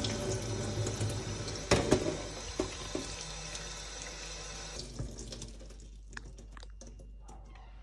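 Kitchen tap running into a stainless steel sink while peaches are rinsed by hand in a metal colander, with a couple of loud knocks about two seconds in. The water stops about five seconds in, leaving faint drips and ticks.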